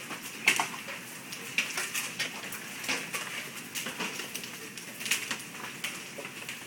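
Large hailstones, some near golf-ball size, striking pavement, roof and metal gutters: a steady run of irregular sharp clacks, a few each second, over a hiss of falling hail and rain.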